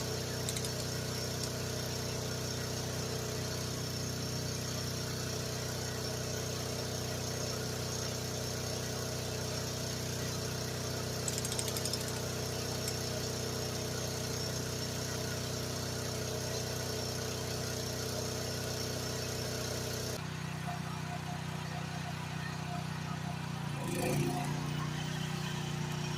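GroundHog mini excavator engine running steadily. The sound changes abruptly about twenty seconds in, and a brief louder swell with a shifting pitch comes a few seconds later.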